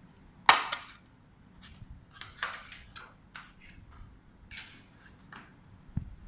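Back case of a GOLE1 mini PC being pried open: a series of short, sharp clicks and scrapes as it comes loose, loudest about half a second in.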